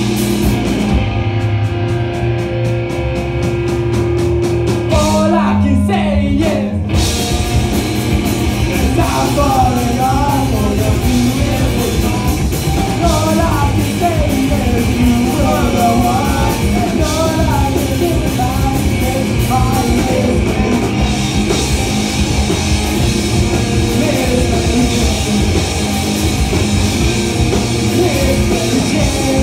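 Punk rock band playing live: electric guitar, bass guitar and drum kit, with a vocalist singing from about nine seconds in. The first few seconds are sparser, and the full band comes in at about seven seconds.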